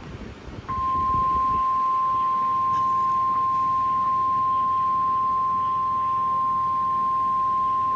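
NOAA Weather Radio warning alarm tone: one steady, unbroken beep-like tone that starts under a second in and holds at an even level. It is the alert that announces a warning broadcast, here a severe thunderstorm warning.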